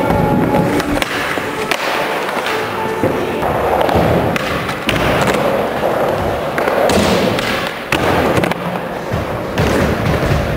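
Skateboard wheels rolling over concrete ramps, with repeated clacks and thuds as boards slap and land on the surface.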